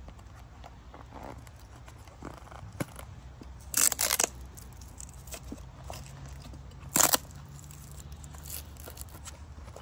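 Hook-and-loop (Velcro) straps of a bike frame bag ripping as they are pulled and pressed around the frame tube. There is a short, broken rip about four seconds in and a brief one about seven seconds in, with light handling rustles between.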